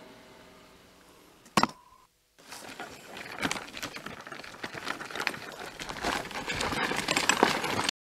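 Folding wagon loaded with firewood being pulled over gravel: its wheels crunch and the frame and load rattle with many small clicks and knocks. A single sharp click comes about one and a half seconds in, before the rattling starts.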